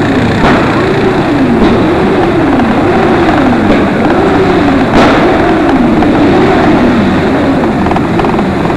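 Motorcycle and quad engines running at parade pace, heard from a moving vehicle in the column, with a dense rumble underneath. A pitched tone rises and falls about once a second throughout, and there is a sharp click about five seconds in.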